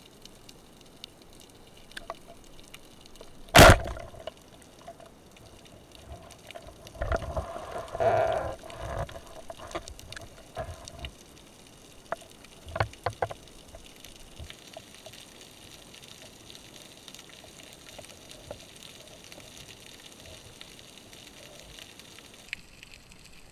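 A roller-head speargun firing underwater: one loud, sharp crack about three and a half seconds in, then scattered knocks and rustling as the speared mullet struggles on the shaft, all over a steady underwater hiss.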